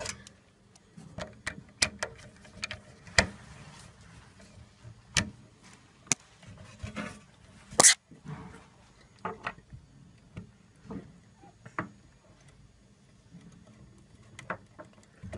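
Irregular small clicks and taps of hands and a small screwdriver working wires into the screw terminal block of an AED cabinet's alarm circuit board, inside its plastic housing; the sharpest click comes about eight seconds in.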